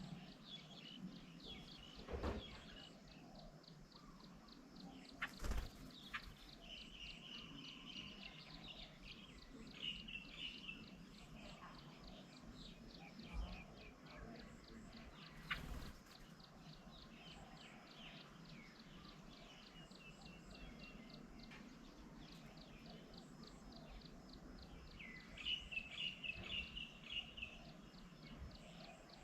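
Faint garden ambience of wild birds calling, with scattered short chirping calls, the busiest near the end, over a steady fast high-pitched ticking. A few sharp knocks sound in between.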